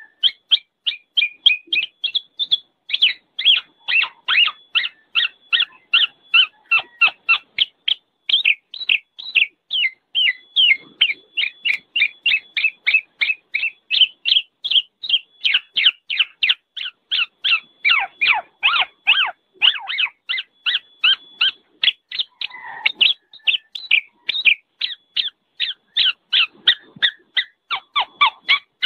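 Black-naped oriole (kepodang) giving a noisy, unbroken run of short calls, about four a second, with a few lower, drawn-out notes mixed in.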